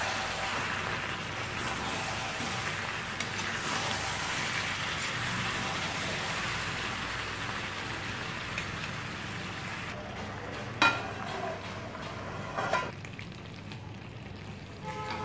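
Mutton curry with potatoes and masala sizzling in a kadhai while it is stirred with a metal spatula as the meat is bhuna-roasted. The sizzle dies down about ten seconds in, and then the spatula knocks twice against the pan.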